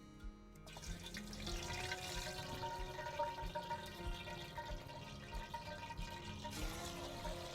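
Water running and splashing, starting about a second in, over soft background music.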